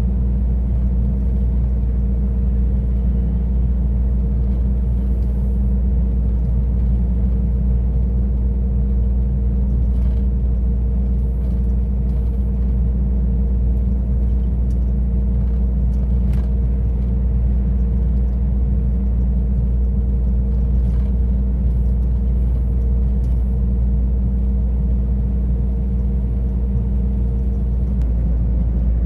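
Heavy truck driving at a steady pace: an unchanging low engine and road rumble with a steady hum above it and a few faint clicks.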